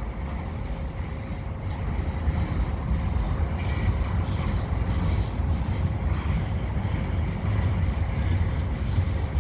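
Freight cars of a slow-moving mixed freight train rolling past, a steady low rumble of steel wheels on rail. A faint steady tone sits over it for the first few seconds.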